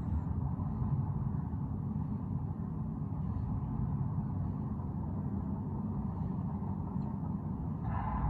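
A steady low rumble, even throughout, with no distinct bangs or bursts.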